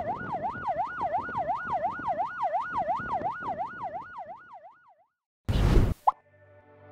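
Vehicle siren in fast yelp mode, rising and falling about three times a second over the rumble of passing vehicles, fading away about four and a half seconds in. A short loud burst of noise follows, and soft music begins right at the end.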